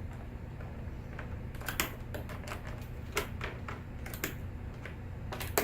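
Patch cable plugs clicking and clacking as cables are handled and pushed into the game's ports: a handful of sharp, irregular clicks, the loudest near the end, over a steady low hum.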